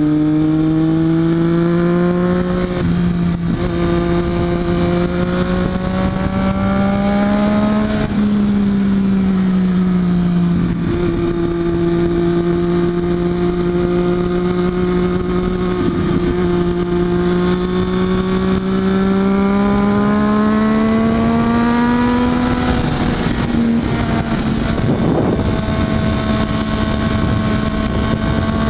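Triumph Daytona 675R's inline three-cylinder engine running steadily. Its pitch climbs slowly for several seconds and drops back, twice.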